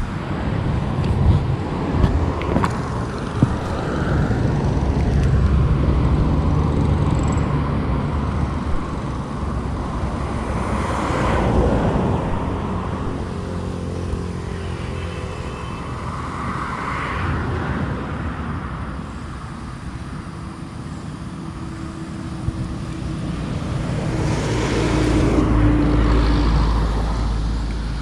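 Motorcycle engine running as it is ridden along a road, its note rising and falling with speed.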